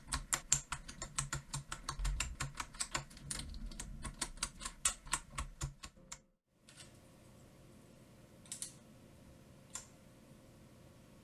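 Typing on a handbuilt keyboard with keycaps: a fast run of key clicks, several a second, that stops abruptly a little past halfway. After that there is a faint hiss with two more single key clicks.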